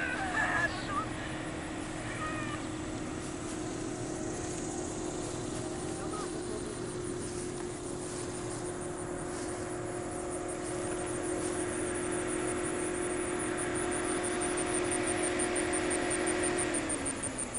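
A small airplane's engine droning overhead, growing louder and then dropping in pitch near the end as it passes. A few bird calls sound in the first seconds, and insects chirp in a fast pulsing rhythm.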